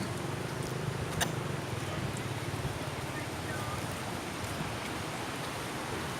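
Low engine hum of a passing vehicle that fades over the first few seconds, over a steady rushing background noise, with one faint click about a second in.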